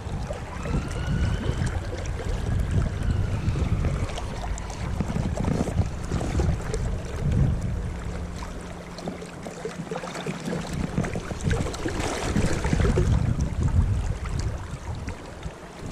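Wind buffeting an unshielded microphone over the steady rush of river water; the gusts ease briefly about halfway through.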